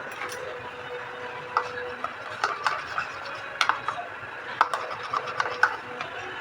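Kitchen utensils clicking and knocking in irregular sharp taps, starting about one and a half seconds in and coming more often toward the end, over a faint steady hum.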